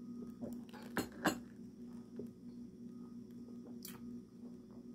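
A few light clicks: two in quick succession about a second in and another near the end, over a steady low hum.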